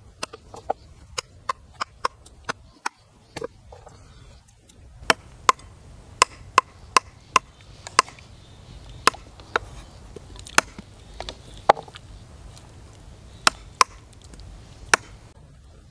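Knife chopping the claw tips off raw chicken feet: a run of sharp, separate chops at an uneven pace, about one every half second to a second.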